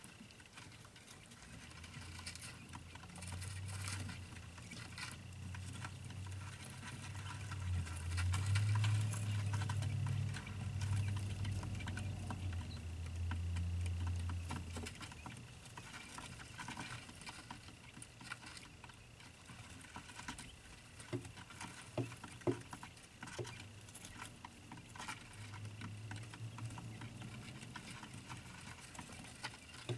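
Many small ticks and scuffs of day-old quail chicks scratching and pattering about. A low hum swells in the first half and is loudest around the middle, and a faint steady high whine runs underneath.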